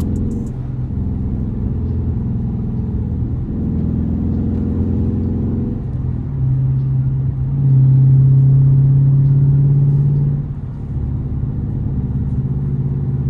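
Dodge Charger's engine and exhaust running steadily while driving. The note grows stronger and louder for about three seconds past the middle, then drops back.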